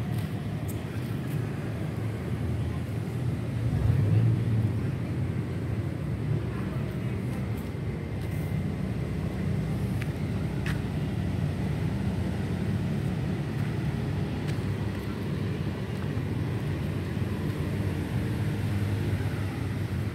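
Steady low rumble of distant city road traffic, with a louder swell about four seconds in.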